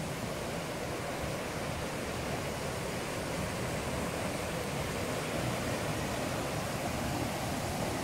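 Fast rocky stream rushing steadily down small waterfalls into a churning pool.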